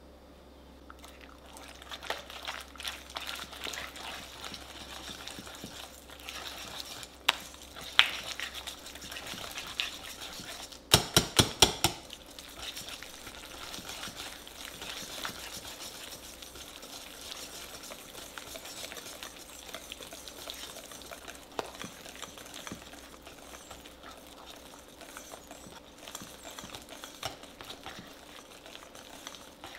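Wire balloon whisk beating egg into creamed butter in a glass bowl: a steady wet stirring sound with fast clicking of the wires against the glass. A quick run of about five loud knocks comes about eleven seconds in.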